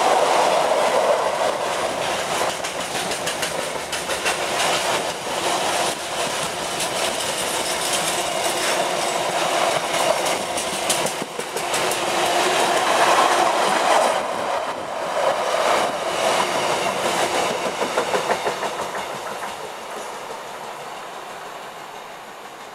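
Loaded container flat wagons of an intermodal freight train rolling past, with a steady rumble and wheels clattering over the rail joints. The sound fades away over the last few seconds as the train recedes.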